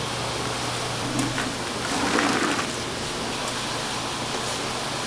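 Soy milk being scooped with a metal scoop and poured into a stainless steel pot, a soft liquid splash about two seconds in, over a steady background hiss and low hum.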